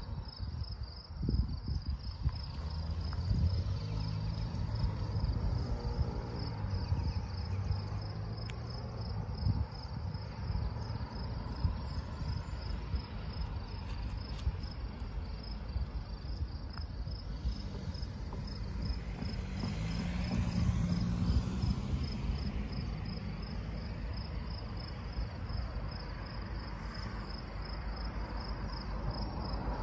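An insect chirping steadily, a high note repeating evenly a couple of times a second, over a low rumble of wind on the microphone.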